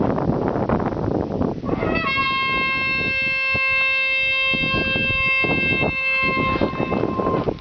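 A single steady trumpet-like horn tone, the faked 'strange sound', comes in about two seconds in and holds for about five seconds over a noisy rumbling background, fading out near the end.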